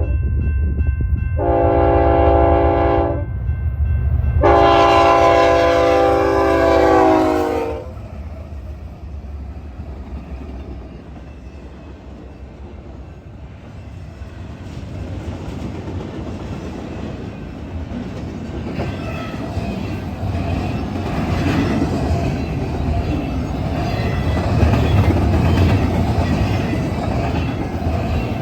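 Freight train's diesel locomotive horn sounding two long blasts, the second falling in pitch as the locomotive goes by, over the low rumble of the GE diesel engines. The sound then drops and builds again into the steady rolling clatter of the train's cars on the rails.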